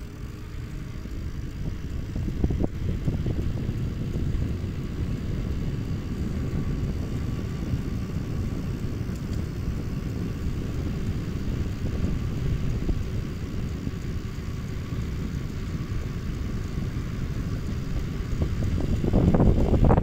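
Wind buffeting the microphone of a camera mounted on a moving bicycle: a steady low rumble that grows louder over the first few seconds and again near the end.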